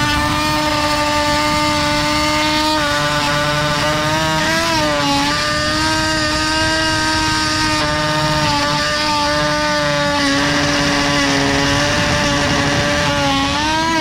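Rockwell Sonicrafter oscillating multi-tool running with a steady high buzzing whine, its metal blade cutting into steel. The pitch sags briefly about five seconds in and again near the end as the blade bites.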